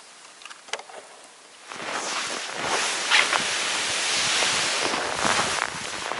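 A few faint clicks, then from about two seconds in a steady rushing noise of wind and rubbing clothing on a microphone worn on the body while moving through snow.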